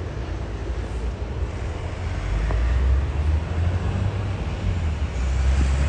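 TasRail TR class diesel locomotive TR08 hauling a loaded cement train, its diesel engine giving a steady low rumble that grows louder about two seconds in.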